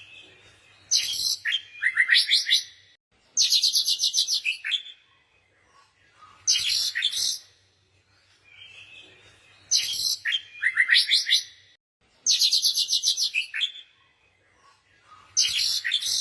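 Songbird singing in repeated high phrases of rapid trills and chirps, one phrase every two to three seconds, with quiet gaps between.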